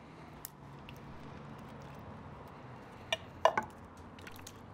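A few short metal clinks and knocks of tin cans, loudest around three seconds in, as canned Great Northern beans are tipped into a cast iron Dutch oven. Under them there is a faint low hum.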